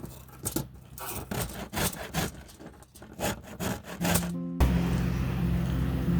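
Knife strokes on a wooden cutting board, a quick irregular run of cuts and scrapes while food is prepared. About four and a half seconds in it cuts suddenly to background music.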